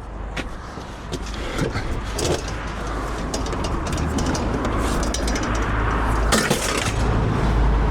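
A loaded vehicle driving: a low engine and road rumble that grows steadily louder, with scattered clicks and rattles.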